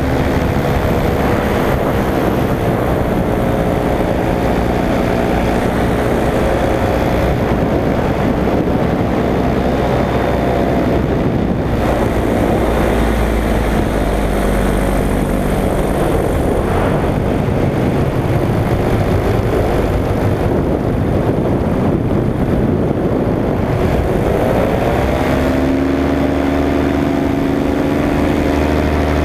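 Paramotor engine and propeller running steadily at cruise, its pitch dipping briefly about a second in and rising near the end as the throttle is opened.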